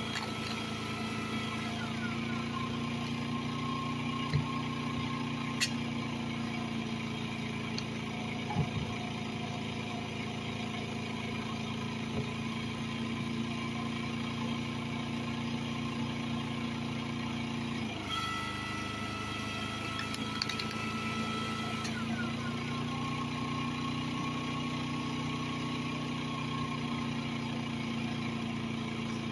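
Generator engine fuelled on wood gas running steadily under the load of an electric log splitter, with the splitter's motor whine shifting pitch a couple of times as the ram works. A few sharp knocks in the first half.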